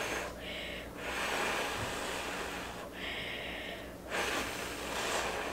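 A person blowing on a spoonful of hot noodle soup to cool it: several long, breathy blows with short breaks between.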